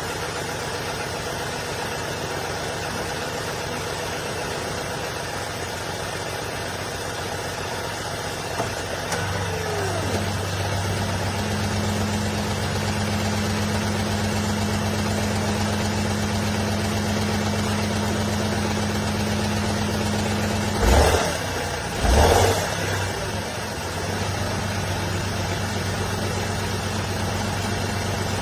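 Honda N-BOX Custom's 660 cc three-cylinder engine idling with a steady hum. About nine seconds in, a deeper, stronger hum sets in. Two short loud bursts of noise come about a second apart, a little past the 20-second mark.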